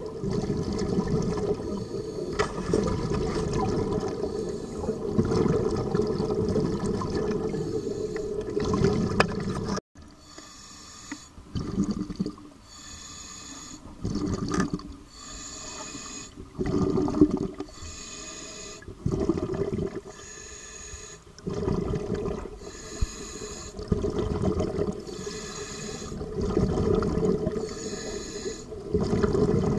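Scuba diver's regulator breathing underwater: hissing inhalations and bubbling exhalations, repeating about every two seconds, heard after a steady low rumble in the first third that breaks off suddenly.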